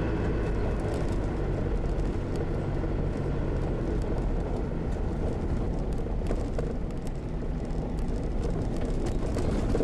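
Four-wheel drive heard from inside the cab while driving over a dry lake bed and dirt track: a steady engine and tyre rumble, with a few light knocks and rattles from the rough surface.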